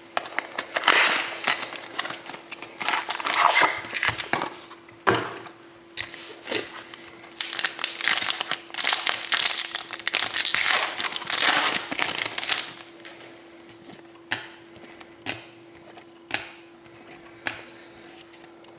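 Sealed trading-card packs being opened: foil wrappers crinkling and tearing in dense bursts for about twelve seconds, then a few light taps and clicks as the cards are handled. A faint steady hum runs underneath.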